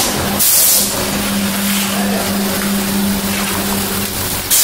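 Vacuum forming machine for plastic seedling cell trays at work. A short hiss of air comes just after the start, a steady hum runs through the middle, and a longer hiss starts near the end.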